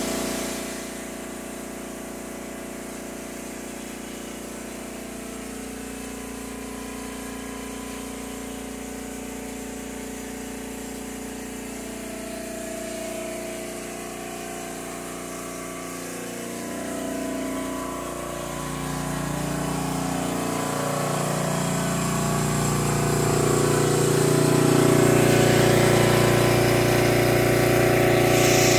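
Portable backup generator engine running steadily with a constant pitch, growing louder over the last ten seconds or so.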